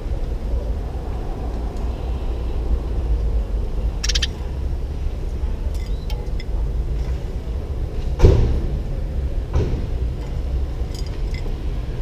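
Steady low rumble of street traffic below, with a brief high chirp about four seconds in and a few faint ticks. A single sharp knock, the loudest sound, comes about eight seconds in, followed by a softer one a second later.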